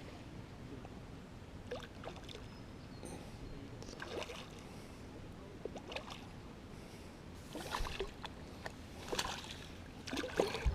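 Faint water sounds at the bank's edge: scattered small splashes and sloshing that come more often over the last few seconds.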